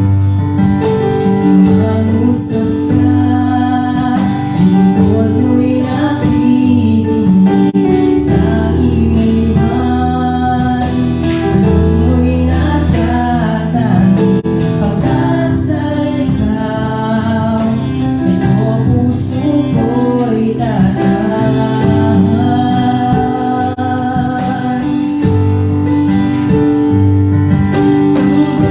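Worship song: singing over guitar accompaniment with a steady bass line.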